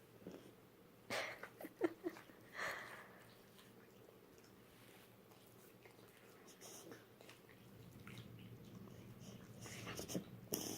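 Sleeping Boxer dog breathing noisily and snoring, with a cluster of short, loud breaths about a second in and another shortly before the end.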